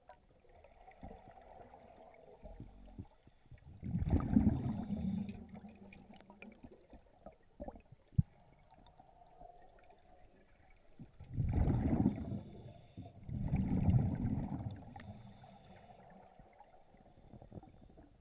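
Scuba divers' exhaled air bubbling out of the regulator underwater: a bubbling surge once about a quarter of the way in, then two more in quick succession in the second half, with quiet stretches between.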